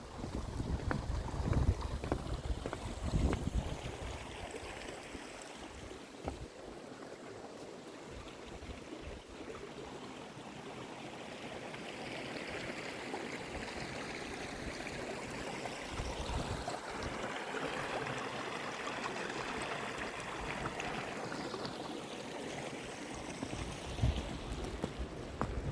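Footsteps crunching on a snowy path for the first few seconds, then the walking stops. A steady rushing noise then swells through the middle and fades again before the steps resume.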